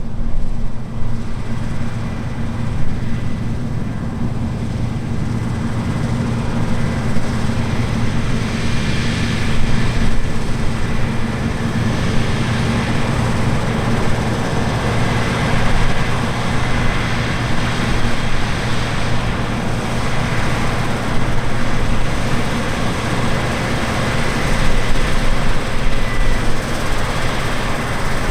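Large diesel harvest machinery running steadily under load, a low engine drone with a faint steady whine above it.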